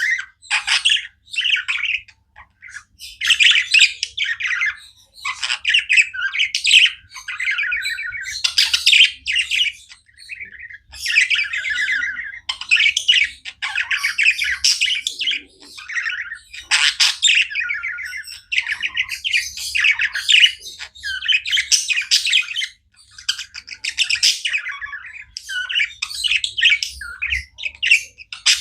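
Pet budgies (budgerigars) chirping and chattering, in bursts of rapid, high calls with short breaks between them.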